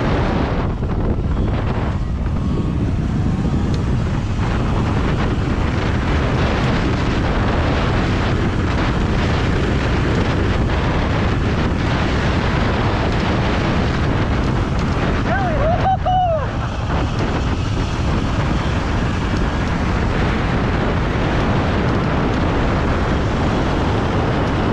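Steady, heavy wind rumble on the microphone of a camera riding an electric dirt bike down a dirt trail. A brief wavering whistle-like tone cuts through about two-thirds of the way in.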